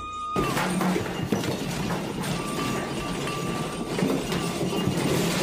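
A room shaking in an earthquake: a dense, continuous rattling and clattering of furniture and household objects.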